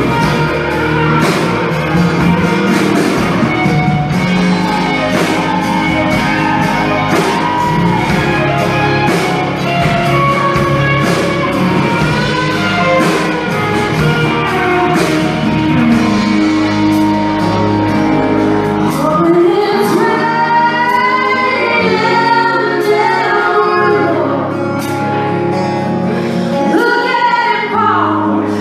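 Live song: electric guitar playing with a full low end, then about two-thirds of the way through the bass drops away and a woman sings over the guitar.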